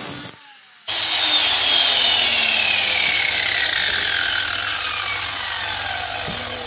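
Small angle grinder grinding a steel lawnmower blade clamped in a vise, taking metal off the heavier side to balance it. It starts abruptly about a second in, and its whine slowly falls in pitch and fades.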